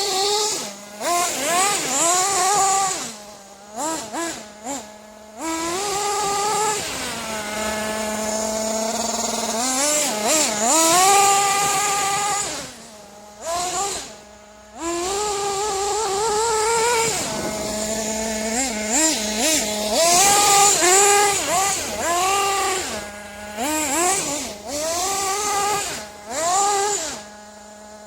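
Nitro engine of a Kyosho Inferno Neo ST 3.0 RC truck revving hard again and again. Its pitch climbs sharply on each burst of throttle and falls back to a steady idle in between, with a few short gaps where the sound drops away.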